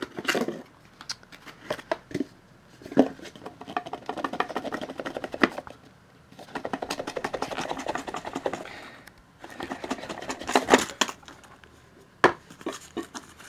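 Cardboard and paper packaging of a Sphero box being handled and pulled apart: scraping and rustling in two longer stretches, with sharp knocks and clicks in between.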